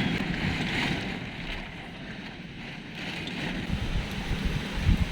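Strong, gusty wind blowing hard, rushing with a steady hiss and rumbling low on the microphone. The gusts swell louder toward the end.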